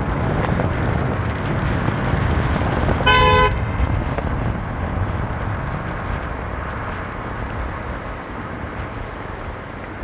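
Downtown street traffic rumbling steadily, with one short car horn toot about three seconds in.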